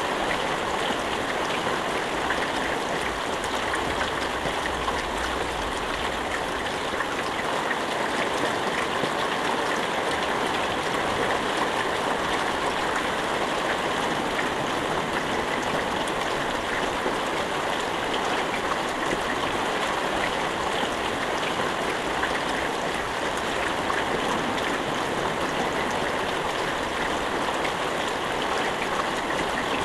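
Steady rain with no thunder: a dense, even hiss of falling water flecked with faint drop ticks, holding the same level throughout.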